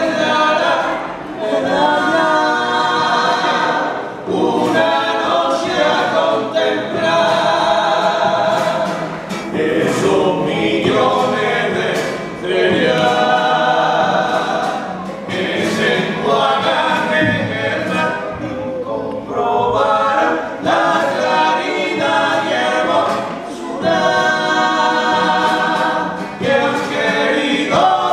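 A small group of men singing a Cádiz carnival song in close harmony, in phrases of a couple of seconds each with short breaks, accompanied by a strummed Spanish guitar.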